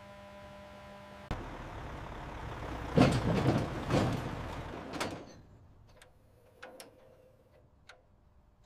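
A heavy truck's tyres rolling over steel plates: a low rumble that starts suddenly about a second in, after a steady hum, rises to two loud surges about three and four seconds in, and dies away by about five seconds. A few faint ticks follow.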